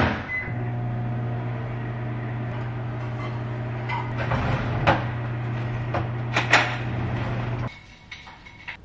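Microwave oven melting chocolate chips with coconut oil: the door clunks shut and a short beep sounds, then a steady hum for about seven seconds with a few small knocks, cutting off suddenly, followed by a beeping near the end.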